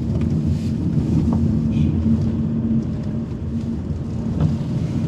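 Car engine running with a steady low hum, heard from inside the cabin while the car moves slowly.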